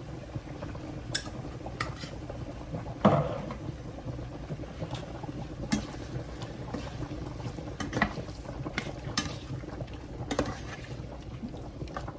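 Shrimp cooking in garlic butter in a pan on high heat, bubbling steadily, with a utensil clinking and scraping against the pan several times, the loudest knock about three seconds in.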